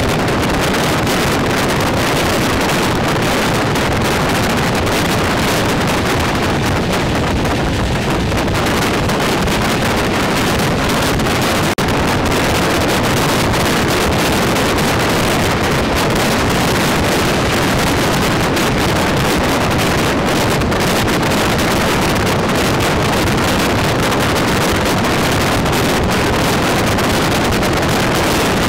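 Steady rush of wind and running noise from the Pallavan Express moving at speed, heard through the open window, with wind buffeting the microphone. It dips very briefly about twelve seconds in.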